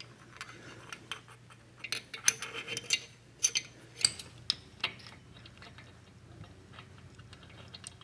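Light metallic clicks and clinks of small engine parts, pushrods and valve gear, being handled and fitted by hand into the cylinder head. The sharpest clinks cluster between about two and four and a half seconds in.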